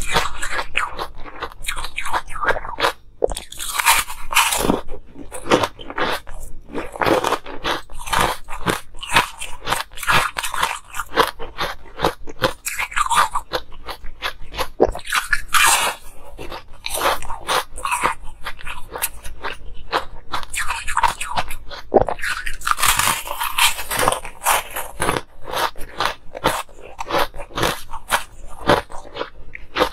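Molded ice pieces being bitten and chewed close to the microphone: repeated sharp crunches and crackles of ice breaking between the teeth.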